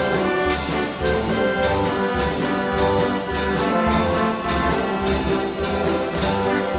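Wurlitzer style 165 carousel band organ playing a roll tune: brass-toned trumpet and trombone pipes over a steady drum beat of about two beats a second.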